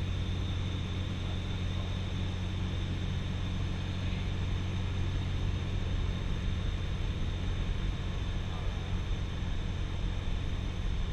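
Cessna 172SP Skyhawk's four-cylinder Lycoming IO-360 engine and propeller droning steadily, heard inside the cockpit with rushing airflow over the cabin.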